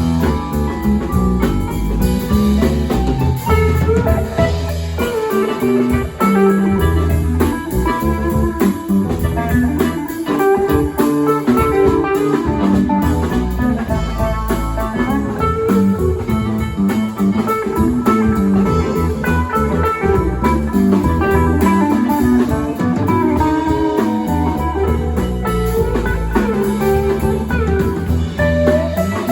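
Live band playing a bluesy tune: electric guitar lines over bass and drums.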